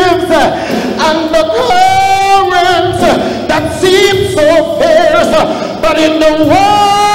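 Man singing a slow worship song into a microphone, holding long notes with vibrato and sliding between pitches, with other voices and music behind him.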